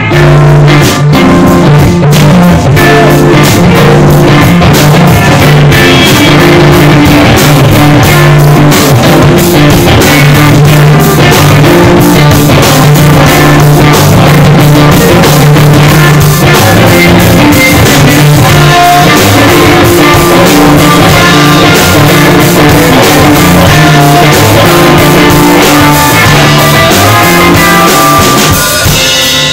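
Live band playing loudly: electric guitar over bass guitar and drum kit.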